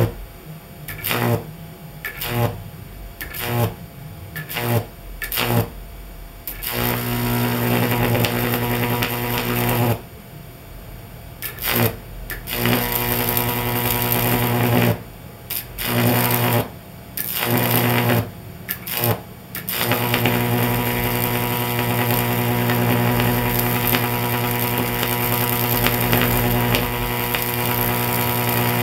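High-voltage arc from a microwave oven transformer stack buzzing with a low mains hum. It strikes in short spurts about once a second for the first several seconds, burns steadily, cuts out and sputters again through the middle, then holds as one continuous buzz for the last nine seconds as the arc is drawn out long.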